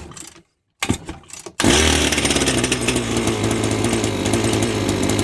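Strimmer's small petrol engine being pull-started: two short starting noises, then it catches about one and a half seconds in and runs steadily with a loud, fast buzz. It is running now that the old carburetor has been replaced and the air leaks that kept it from starting have been sealed.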